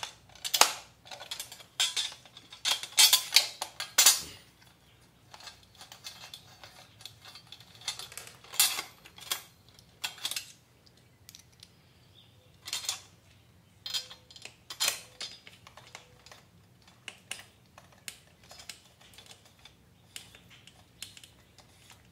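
Irregular small metal clicks and clinks of a socket on a long extension and bolts being worked against a dirt bike's metal radiator guard, with a cluster of sharper clinks in the first few seconds.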